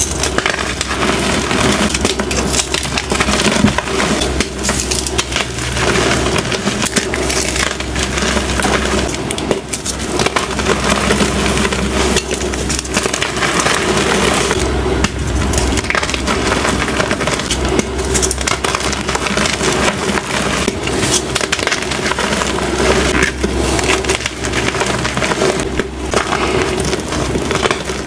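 Blocks of plain white gym chalk crunching and crumbling as hands squeeze and break them: an unbroken run of crisp cracks and powdery crumbling.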